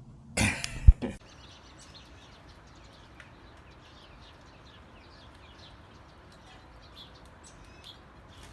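A brief rustling burst ending in a sharp thump about a second in, then faint, repeated bird chirps over a steady hiss.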